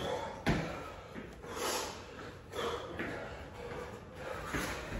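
Heavy, forceful breathing from people doing burpees: several short, noisy breaths, with one thump of a body landing on the floor mat about half a second in.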